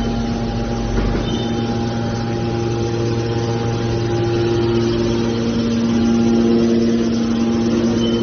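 Mini aluminium can baler's hydraulic power unit running: a steady machine hum of several held tones, with another, higher hum joining about three seconds in.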